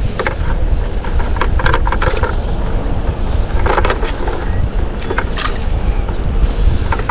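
Heavy wind buffeting the microphone, with irregular rustles and clicks from a wet nylon cast net being shaken out over a plastic bucket to empty live baitfish into it.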